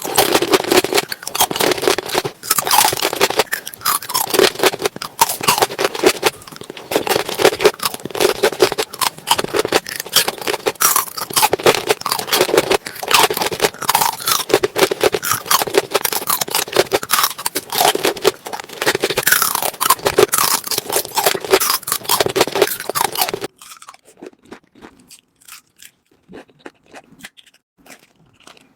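Close-miked mukbang eating: loud, dense crunching and chewing of food. It drops suddenly to quieter, sparser chewing clicks near the end.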